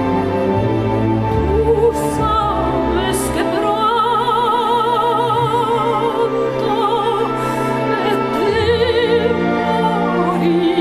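Operatic soprano singing long held notes with wide vibrato over a symphony orchestra's sustained strings.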